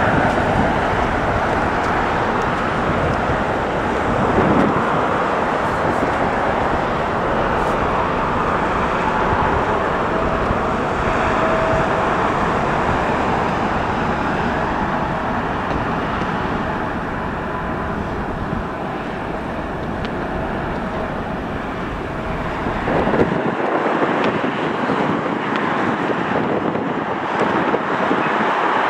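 Steady outdoor noise of road traffic below mixed with distant jet airliner engines at the airport, with wind on the microphone. Near the end the deep rumble drops away and the sound becomes thinner.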